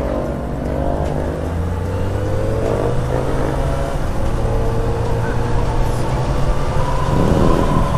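Yamaha XJ6's inline-four engine running while riding, its pitch climbing about three seconds in and again near the end as the throttle opens, with wind rushing past.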